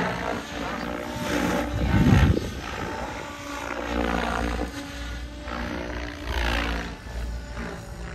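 Radio-controlled helicopter in flight: the whine of its motor and rotor rises and falls in pitch as it manoeuvres, with louder rotor-blade whooshes about two seconds in and again near six and a half seconds.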